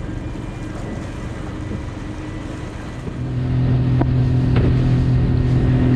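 Boat's outboard motor running under way, with water and wind noise; about three seconds in the engine comes up to a louder, steady hum.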